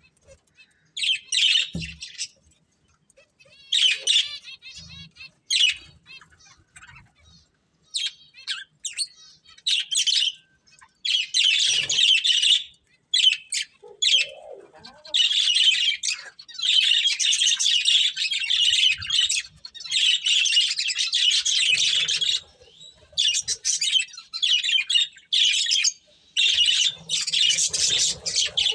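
Budgerigars chirping and chattering: short bursts of chirps at first, then long runs of continuous warbling chatter from about halfway through.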